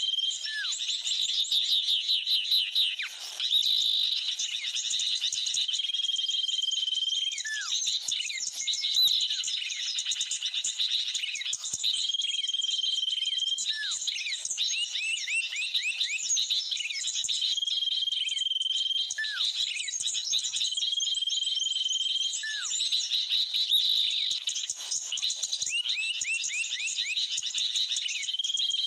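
Bird-lure recording of noisy sooty-headed bulbul (kutilang) calls mixed with small-bird chirps, played on a loop: dense twittering, with a held whistle and short falling whistles coming back every few seconds.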